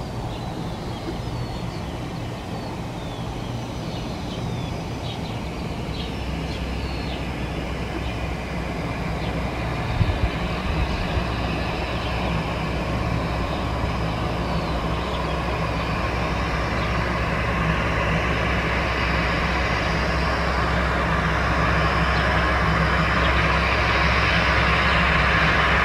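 Aircraft engines running with a steady low hum, the noise growing gradually louder through the second half as the aircraft nears. Small birds chirp in the first several seconds, and there is a single brief knock about ten seconds in.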